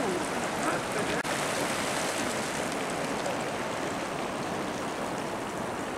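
A fast-flowing, muddy stream spilling across a dirt track, a steady rush of water with a brief break about a second in.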